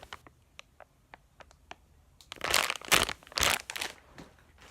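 Plastic packaging crinkling as it is handled: a few light ticks and clicks, then two loud bursts of crinkling about two and a half and three and a half seconds in.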